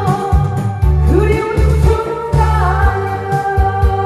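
Woman singing a Korean trot song into a headset microphone over a backing track with a steady, pulsing bass beat, amplified through a PA system.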